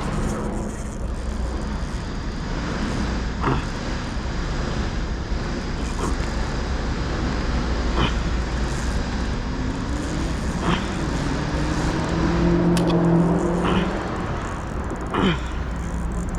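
Steady road traffic rumble, with a vehicle's engine note rising and falling as it passes about ten to fourteen seconds in. A few short sharp clicks or knocks come every two or three seconds.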